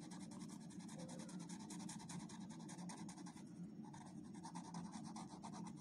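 Faint scratching of a felt-tip sketch pen drawing on a wooden ice-cream stick, in a steady run of short strokes.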